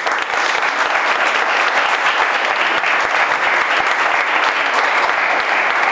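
A small crowd applauding: dense, steady clapping of many hands.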